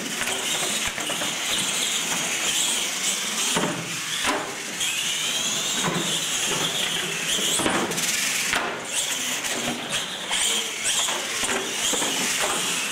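R/C monster trucks racing on a concrete floor, with a high motor whine that rises and falls with the throttle and tyres scrubbing. Several short knocks come as the trucks hit and land off the ramps.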